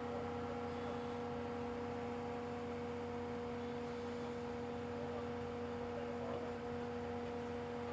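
Excavator running at a steady throttle, its engine and hydraulic pump giving an unchanging tonal hum.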